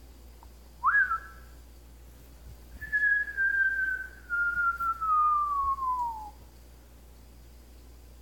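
African grey parrot whistling: a short upward-swooping whistle held briefly, then a long clear whistle that slides slowly downward in pitch for about three and a half seconds.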